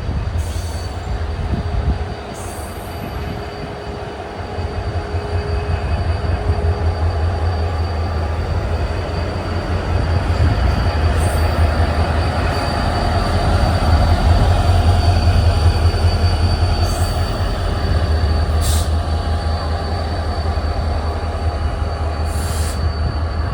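WDP-4D EMD diesel locomotive with its passenger train: a steady low engine hum over rail and wheel noise, growing louder through the middle, with a few brief sharp clicks.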